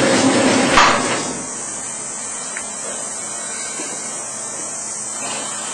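Sushi-cutting machine with 45-degree comb blades running with a mechanical hum, a sharp clack just under a second in, after which the running noise drops to a lower steady hiss.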